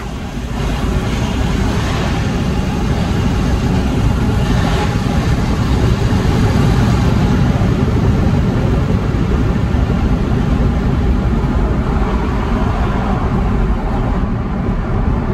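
Straight-piped BMW E60 530d's three-litre straight-six turbo diesel pulling under hard acceleration, heard from inside the cabin as a deep rumble mixed with road and wind noise. It grows louder over the first few seconds, then holds steady.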